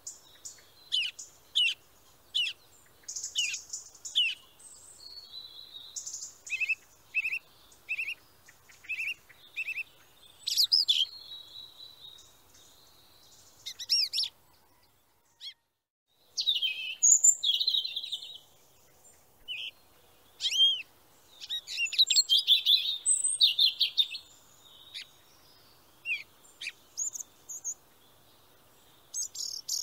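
Small birds chirping and singing: quick high sweeping chirps and short runs of repeated notes, broken by a silence of about two seconds halfway through.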